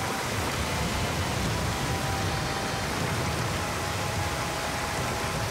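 Rushing floodwater surging through a tunnel: a steady, even wash of water noise.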